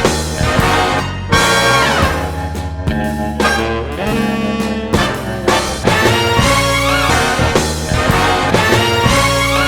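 Upbeat intro music with brass and drums, cutting off abruptly at the end.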